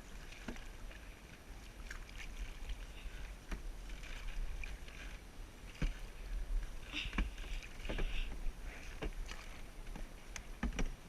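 Canoe paddles dipping and splashing in the river water, with several short knocks, typical of a paddle striking the canoe's hull, scattered through the strokes.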